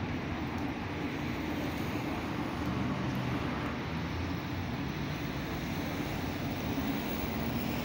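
Steady outdoor background rumble with a faint low hum, unbroken and even in level.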